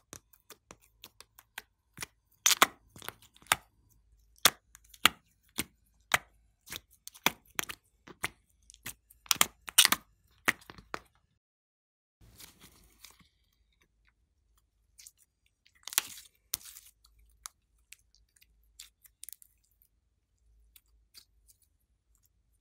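Sticky slime being pressed out of a plastic tray and squeezed by hand: a quick run of sharp pops and clicks for about ten seconds, then a brief soft squish and a few more scattered pops.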